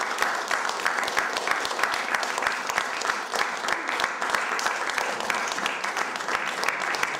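A small audience applauding, many hands clapping steadily and continuously.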